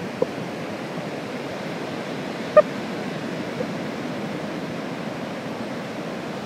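Steady rushing noise of surf on a beach, with one short sharp squeak about two and a half seconds in.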